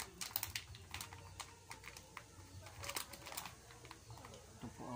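Small card-and-plastic retail package of a USB cable being handled in the hands, giving scattered light clicks and taps in small clusters.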